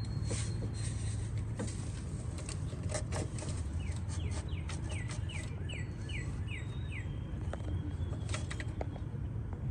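A songbird singing a quick run of about eight short, falling chirps, with a few thin whistled notes before and after. Scattered light clicks and taps and a steady low rumble sit underneath.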